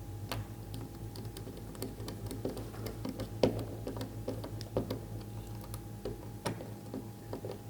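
Light, irregular clicks and taps of small plastic and metal parts being handled as a power cable is clamped into a track-light live-end feeder, with a few sharper clicks about three and a half, five and six and a half seconds in.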